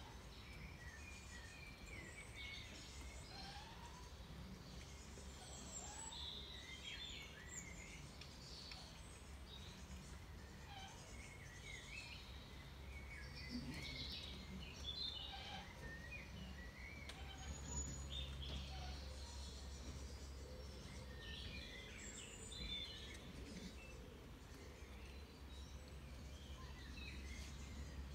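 Garden birdsong: several small birds chirping and warbling on and off, over a faint steady low rumble.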